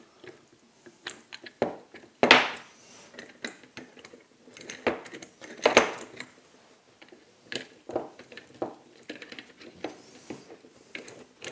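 Threaded steel rods, barrel nuts and a wooden clamp jaw being fitted together by hand: scattered metal clicks and wooden knocks against the workbench. The two sharpest knocks come about two and six seconds in.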